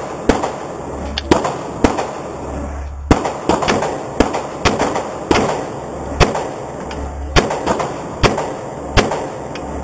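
Glock pistol fired in a string of about a dozen shots, roughly one every half second to a second, each sharp crack followed by a short ring of echo off the walls of an indoor range.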